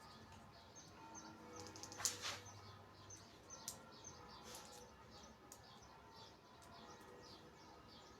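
Faint birds chirping, short high chirps scattered throughout, with one brief handling noise about two seconds in.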